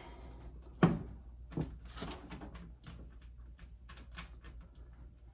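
Hand work at a metal electrical panel: one sharp knock about a second in, then lighter knocks, taps and small clicks of tools and parts being handled.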